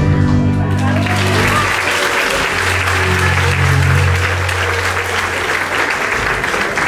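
Audience applauding as a song ends, starting about a second in, while the song's last low notes fade out over the first few seconds.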